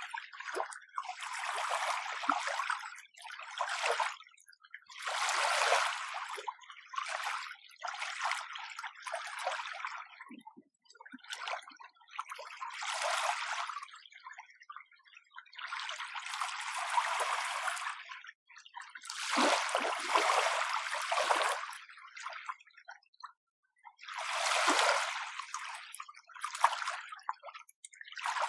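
Small, gentle waves lapping at the shore: one soft wash of water after another, every second or two, with short quiet gaps between.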